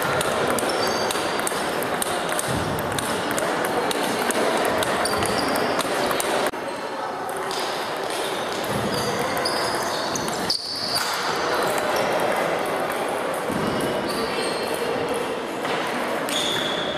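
Table tennis balls clicking off bats and tables during rallies, with many short ticks overlapping from several tables in play at once, over a steady background of hall noise and voices.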